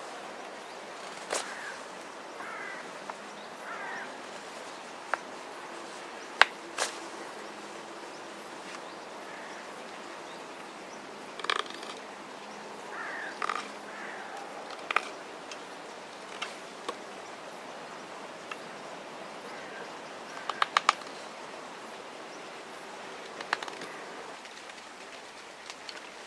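Knife carving dried ash wood by hand: short scraping cuts and sharp clicks at irregular intervals, with a quick run of three clicks about three quarters of the way in.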